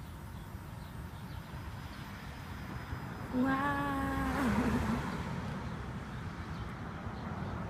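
A person's voice humming one held note about three and a half seconds in, wavering as it ends, over a low steady rumble.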